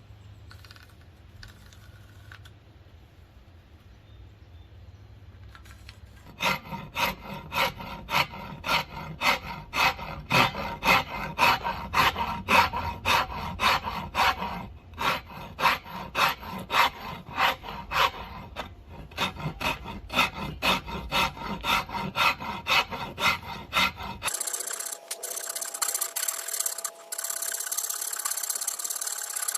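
Hand file rasping across a hickory axe handle in regular back-and-forth strokes, about two a second, starting some six seconds in after a quiet low hum. Near the end it changes abruptly to a steadier, continuous scraping.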